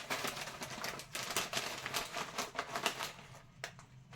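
Packaged food packets rustling and crinkling as they are handled and packed together, with small clicks. It dies down near the end.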